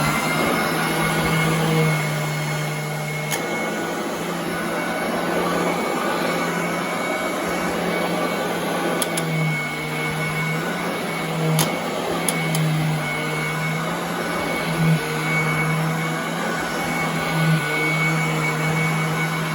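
Royal commercial upright vacuum cleaner running steadily, its motor just up to speed, with a high steady whine over a rushing air noise. Its low hum shifts in pitch now and then, and a few sharp ticks cut through.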